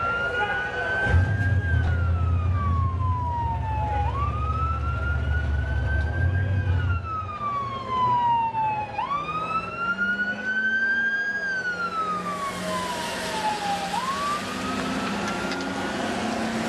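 Ambulance siren wailing, its pitch rising and then falling slowly about every five seconds. A deep steady rumble sits under it from about a second in until about seven seconds, and a rushing hiss comes in over the last few seconds.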